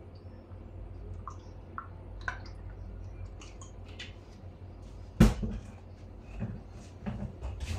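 Food-prep handling sounds: scattered light clicks and taps of a knife and ingredients on a cutting board, with one sharp knock about five seconds in, over a low steady hum.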